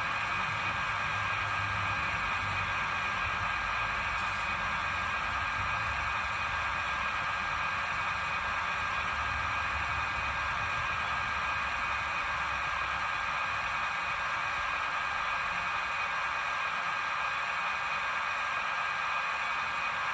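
A steady hiss with a constant high-pitched whine, unchanged throughout.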